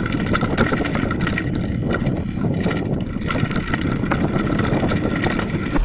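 Mountain bike rattling and knocking over a rough, rocky trail descent, with wind buffeting the microphone of a bike-mounted action camera. The noise is steady and dense with many small knocks throughout.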